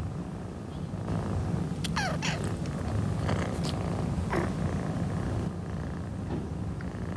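Orange tabby kitten purring steadily, with two short high cries that fall in pitch, about two and four seconds in.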